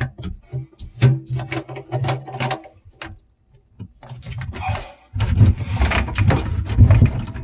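White PVC sink drain fittings being handled and twisted loose at their slip-nut joints: a run of small plastic clicks and knocks, a short pause, then from about five seconds in a louder stretch of plastic rubbing and scraping as the pipe is worked apart.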